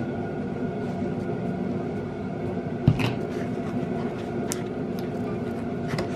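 A plastic bottle of contact lens solution set down on a tabletop with a single sharp thump about three seconds in, over a steady background hum, followed by a few small clicks of stirring slime in a paper bowl.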